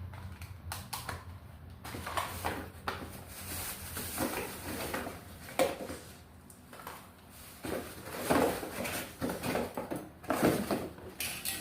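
Irregular knocks, clatter and rustling as a boxed trimmer router kit is unpacked and its parts handled; the motor is not running.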